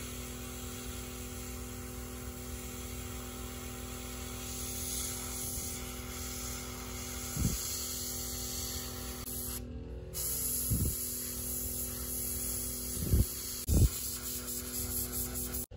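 Airbrush spraying paint onto a miniature: a steady hiss of air that breaks off briefly about ten seconds in, over a steady hum. There are a few low thumps in the second half.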